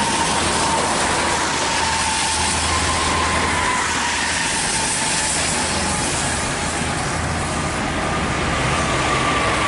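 Heavy traffic on a rain-soaked road: a steady hiss of rain and tyres on wet pavement over the low running of bus and truck diesel engines, with a thin high whine that holds steady and wavers slightly.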